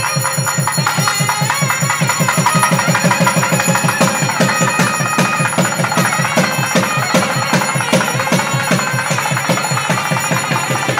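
Temple bells ringing continuously over a fast, steady drumbeat of about seven strokes a second, with a wavering reed-like melody on top: the festive drum, bell and wind music of a Hindu temple ritual.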